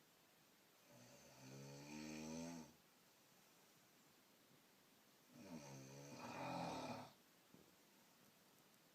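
A woman snoring: two long, pitched snores about four seconds apart, each lasting well over a second, with quiet breathing between them.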